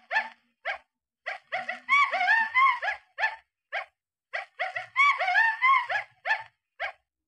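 Monkey calls: short, sharp calls that run together into a fast series of rising whoops, then trail off. The calls come in near-identical bouts about three seconds apart, the last ending just before the close.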